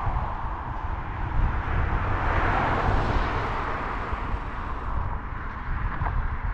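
Road traffic noise with wind buffeting the microphone; a vehicle passes, swelling and fading about two to three seconds in.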